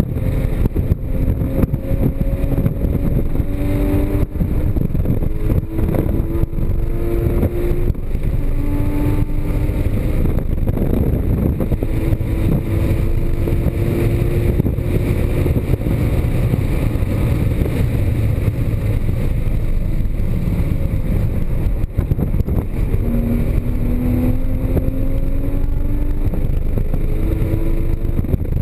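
Porsche Cayman GTS's flat-six engine driven hard, its pitch climbing under acceleration and dropping back at each gear change, several times over, above heavy wind and road noise.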